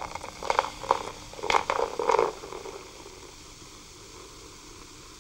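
A few short, irregular sounds in the first two and a half seconds, then a steady hiss of recording noise.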